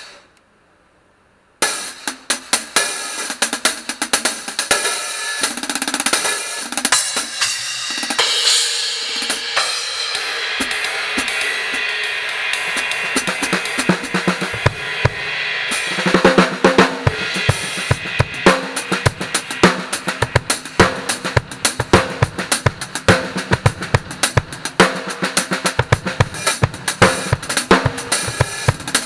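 Drum kit played solo with Anatolian cymbals. After a second and a half of silence, the cymbals ring and build into a sustained wash. About sixteen seconds in, the bass drum and snare come in with a steady beat under the cymbals.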